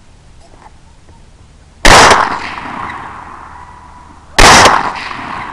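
Two rifle shots about two and a half seconds apart, each with a long echo that dies away over a couple of seconds.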